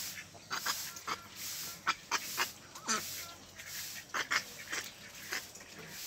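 Domestic laying ducks quacking: a run of short, harsh quacks from several birds.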